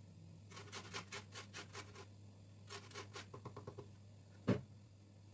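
Lemon being rubbed against a metal box grater to zest it: two runs of quick, rhythmic scraping strokes, about five a second. A single sharp knock near the end.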